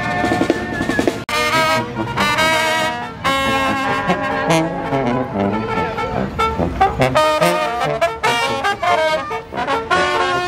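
A marching brass band playing a tune, with trumpets and trombones over a sousaphone bass. There is a sudden break about a second in.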